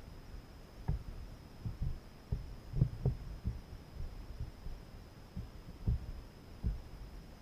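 Dull, irregular low thumps and knocks from a fishing kayak's hull, carried to the camera mounted on it, with a faint steady high whine throughout.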